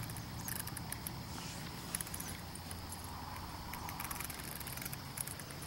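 Faint outdoor ambience: a steady high insect trill from crickets over a low steady hum, with scattered light clicks.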